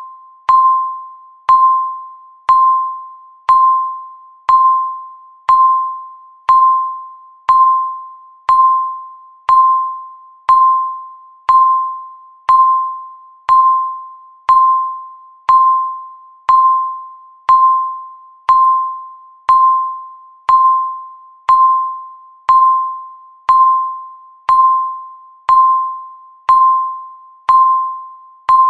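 Countdown timer beeping once a second: a single electronic beep of the same pitch each second, each one starting sharply and fading away before the next.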